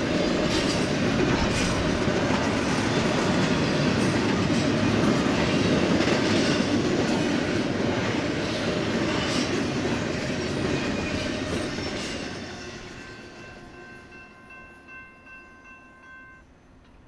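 Double-stack intermodal freight cars rolling past with a loud, steady rumble and occasional clacks of wheels over rail joints. The noise fades away after about twelve seconds as the train's end passes. A grade-crossing bell then rings faintly and stops shortly before the end.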